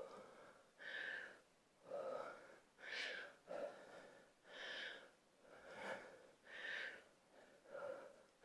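A woman breathing hard from exertion: faint, quick breaths in and out, a little more than one a second.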